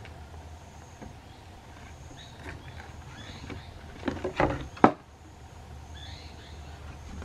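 Wooden perch on a rope knocking and clacking as a baby woolly monkey swings on it: a short cluster of knocks about four seconds in, ending in one sharp clack. Faint bird chirps and a steady low hum run underneath.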